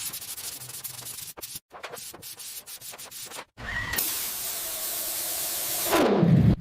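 Quick abrasive rubbing strokes, as in sanding rusted metal, for about three seconds, then a steady loud hiss that closes with a falling sweep.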